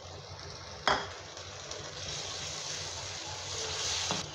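Onion-tomato masala sizzling in a hot karahi just after a little water has been added, stirred with a wooden spatula. A single sharp knock about a second in, then a hiss that builds from about two seconds in and stops just before the end.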